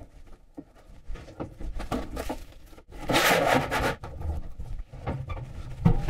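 Thin sheet steel being worked in a sheet metal brake: scraping and rubbing with scattered light knocks, a louder scrape about three seconds in and a sharp knock near the end.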